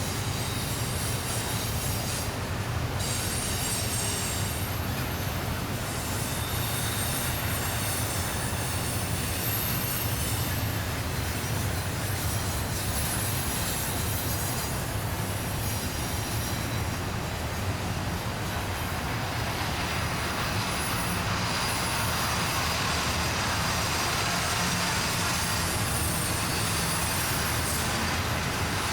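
Long intermodal freight train rolling through a tight curve: a steady rumble of wheels on rail with thin, high wheel-flange squeal from the cars rounding the bend. It grows slightly louder toward the end.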